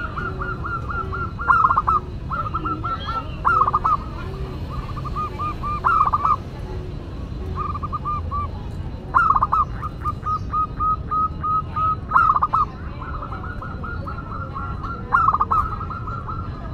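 Zebra dove (perkutut) cooing repeatedly: runs of quick short notes, each broken by a louder falling note, about six phrases in all.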